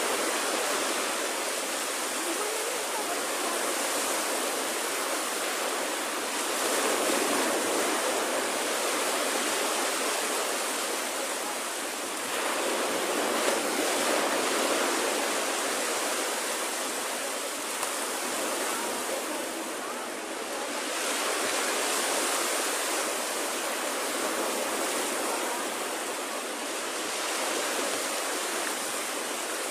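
Small waves breaking and washing up a sandy beach: a steady rush of surf that swells and eases every several seconds.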